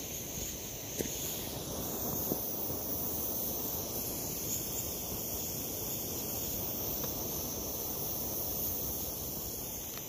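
Backpacking stove burner running steadily under a pot of water, a constant rushing flame noise with a couple of faint ticks.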